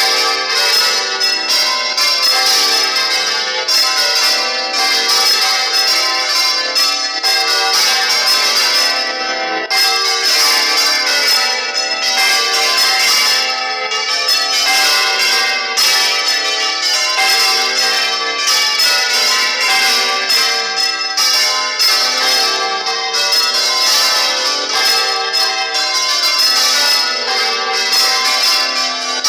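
Several church bells swinging full circle together in a Spanish-style general peal (volteo), ringing continuously with overlapping, repeated strikes, heard close up in the belfry.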